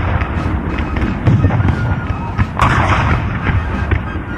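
Loud, dense crackle of many sharp bangs with heavier booms among them, and voices underneath.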